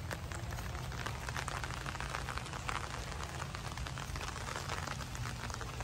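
Steady rain falling: an even hiss with many small, scattered drop ticks.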